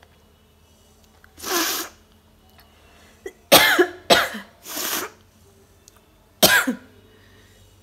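A person sneezing in a run of about five sharp bursts, set off by tickling the inside of the nose with a stick.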